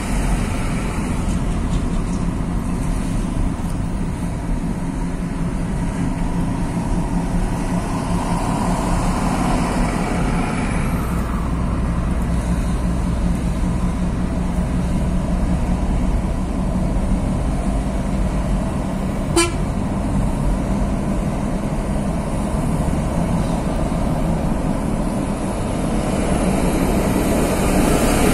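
Steady road and engine noise heard from inside a moving car's cabin, swelling briefly now and then as traffic passes. About two-thirds of the way through comes a single brief sharp blip.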